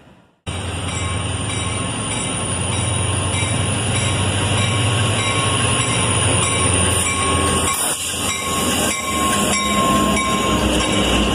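COASTER commuter train hauled by diesel locomotives passing close by: the low drone of the diesel engines over the rumble of the wheels, with a thin high squeal that slowly falls in pitch. It starts abruptly about half a second in.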